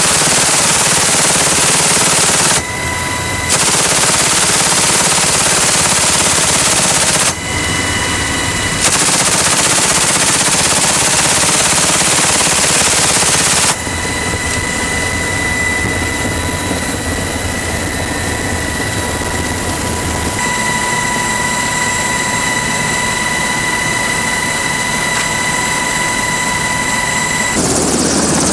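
GAU-21 .50-caliber door-mounted machine gun firing in long sustained bursts from a helicopter, with two short pauses in the first half. About halfway through the firing stops and the helicopter's cabin noise carries on, with a steady high whine.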